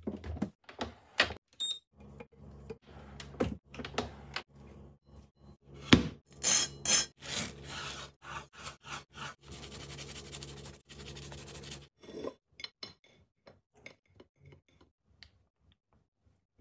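Kitchen handling clatter and knocks, then a knife sawing through crisp toasted white bread on a wooden cutting board, a scratchy crunching scrape lasting several seconds, over a steady low hum that stops about twelve seconds in. After that only a few faint taps.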